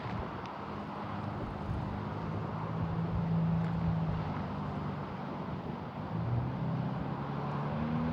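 A vehicle engine running with a low, slightly wavering hum over a steady rush of background noise.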